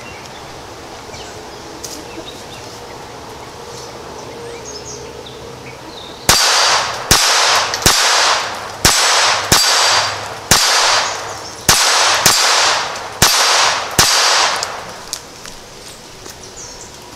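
A Ruger SR22 .22 LR semi-automatic pistol firing CCI Quiet-22 Semi-Auto ammunition: a quick string of about ten shots, roughly one a second, starting about six seconds in. Each shot is followed by a clang as the hanging steel plate target rings. Every round cycles the action.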